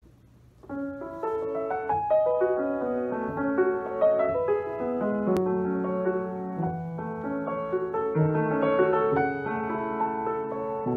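Schimmel Wilhelm W-180 grand piano played with both hands: a flowing passage of many overlapping, sustained notes that begins under a second in.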